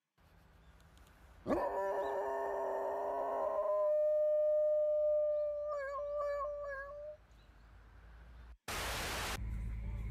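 A golden retriever howls: one long howl held at a steady pitch, starting about a second and a half in and wavering toward its end. Near the end comes a short burst of noise, then a steady low rumble.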